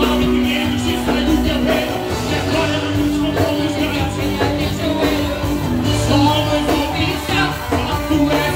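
Band music from a gospel worship song, with sustained instrument tones over a steady beat and singing or shouted vocals in the mix.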